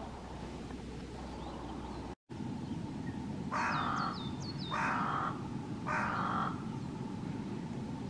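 Hooded crow cawing three times, harsh calls about a second apart, with a few thin high chirps from a small bird over the first caw. A steady low rumble runs underneath, broken by a brief dropout about two seconds in.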